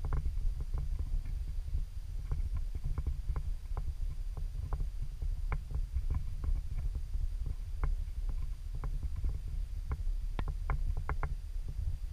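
Low, steady rumble of wind buffeting the camera microphone, with irregular sharp clicks scattered through it and a quick cluster of them near the end.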